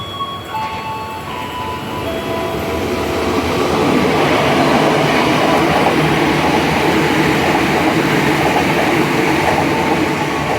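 A train passing through a level crossing: the rumble of wheels on rails builds over the first few seconds, stays loud through the middle and eases near the end. The crossing's warning tones sound at the start and again near the end.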